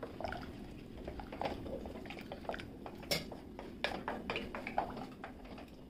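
A spoon stirring thick curry in an aluminium pressure cooker, with scattered light clicks and knocks of the spoon against the pot, most of them a few seconds in.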